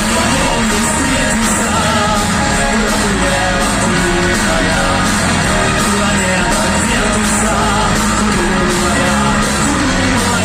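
Pop song performed live by a band, playing with a steady beat.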